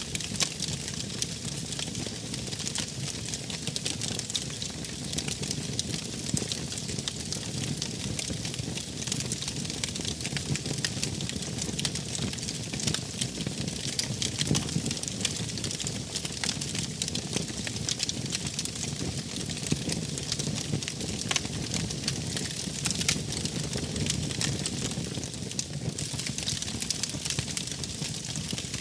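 Wood fire burning steadily, crackling with many small sharp pops over a low rumble of flames.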